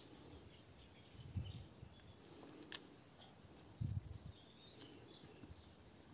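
Faint outdoor background sound with a few soft low thumps and a couple of sharp clicks.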